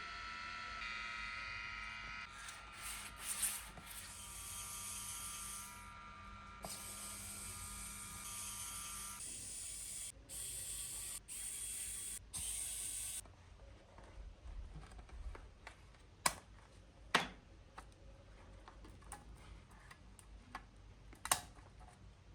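MacBook Air cooling fan running with a steady whine of several tones, the fan noise the laptop is being cleaned to cure; the whine stops about nine seconds in. Short bursts of hiss follow, then a few sharp clicks near the end.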